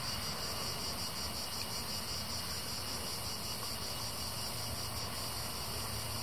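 Insects chirring steadily in a high-pitched, finely pulsing chorus over a light hiss, with a low hum growing in near the end.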